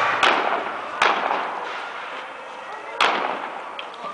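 Three gunshots, each a sharp crack with a fading echo. The second comes about a second after the first and the third two seconds after that.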